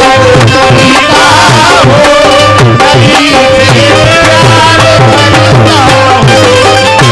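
Live qawwali music: hand drums beat a steady rhythm under held melody notes and a wavering melodic line.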